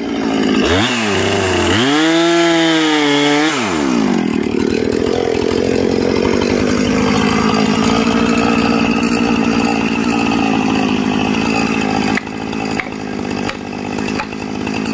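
Gas chainsaw revved, its pitch rising and falling a couple of times, then running steadily without cutting. A few sharp knocks near the end.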